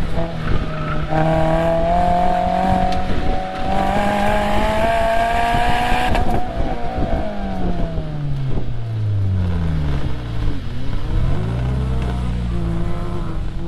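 2022 Subaru BRZ's flat-four engine heard from inside the cabin: it pulls hard with rising pitch for about five seconds, then the pitch falls away in steps as the car slows, settling to a low steady running note near the end.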